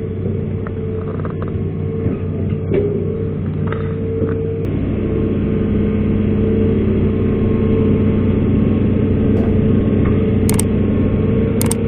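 Hitachi hydraulic excavator's diesel engine running steadily, growing louder and heavier from about halfway through, with a few light knocks.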